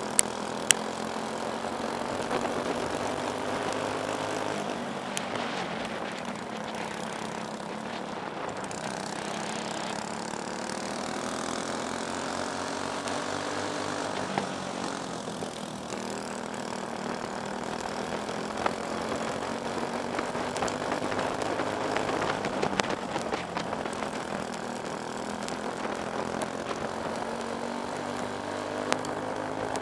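Briggs & Stratton Animal single-cylinder four-stroke kart engine racing on a dirt oval, its pitch rising on the straights and falling off into the turns, over and over, with other karts' engines mixed in. A few sharp clicks cut through, two of them just after the start.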